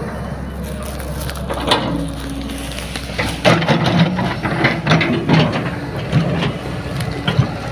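Hydraulic crawler excavator's diesel engine running under load, with irregular cracking and crunching as its bucket tears up brush and palm stumps and fronds. The crunching starts about a second and a half in and comes thick and fast from about three and a half seconds in.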